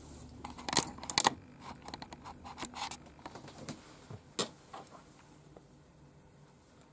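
A few light, sharp clicks and taps of small objects being handled on a work table, most of them in the first few seconds, then faint room tone.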